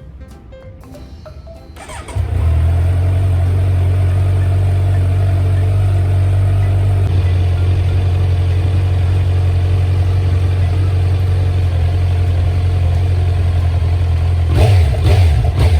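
Kawasaki Z900's inline-four engine, on its stock silencer, starting about two seconds in and settling into a steady idle as it warms up, with a few throttle blips near the end.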